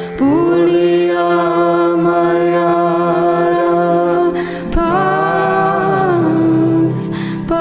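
Devotional Bengali bhajan: a voice sings long drawn-out notes over a steady drone. A new held phrase begins about five seconds in.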